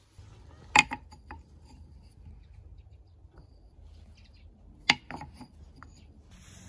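Wooden pieces set down and knocking on wood: two sharp knocks about four seconds apart, each followed by a few lighter clatters, over a faint low hum.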